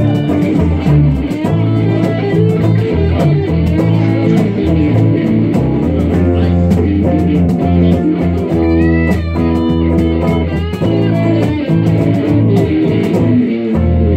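A live electric blues band playing an instrumental passage: electric guitars over a bass guitar line, with bent lead notes about nine seconds in.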